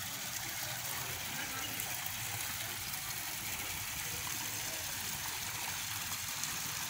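Water from the three spillways of a wall fountain falling into its shallow basin: a steady splashing rush.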